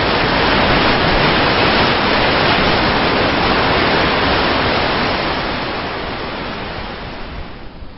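Steady rushing noise of blizzard wind with no pitch to it. It fades out smoothly over the last few seconds.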